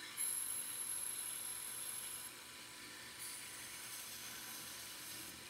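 Belt grinder running with a faint grinding hiss and a thin high whine as the edge of a Henckels serrated kitchen knife is held to the belt, working the small flats of the serrations to raise a burr. Two passes of about two seconds each, with a short pause between.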